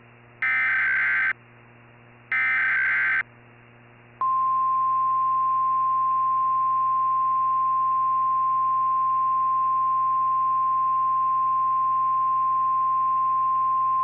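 Emergency Alert System SAME header: the last two of three short digital data bursts, about a second apart. About four seconds in, the steady single-pitch NOAA Weather Radio 1050 Hz alert tone starts and holds for about ten seconds.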